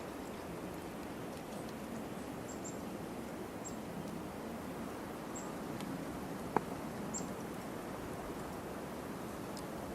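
Steady outdoor background noise with a few faint, short, high chirps scattered through it and one sharp click a little past halfway.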